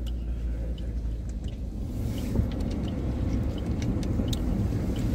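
Steady low rumble of a car, heard from inside the cabin, with a few faint light clicks over it.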